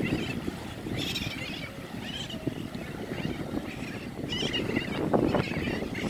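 Seabird colony of terns and frigatebirds calling: repeated harsh calls every second or so, over a steady low rumble of wind on the microphone and lapping water.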